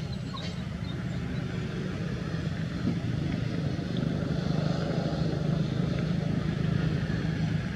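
A motor vehicle engine running steadily, a low rumble that grows a little louder in the middle.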